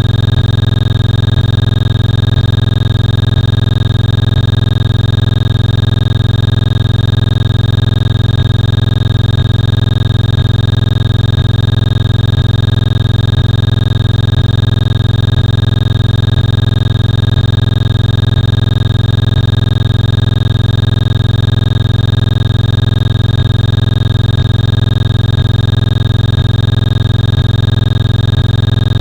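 A loud, steady hum that never changes: a deep drone with a few fixed higher tones over it.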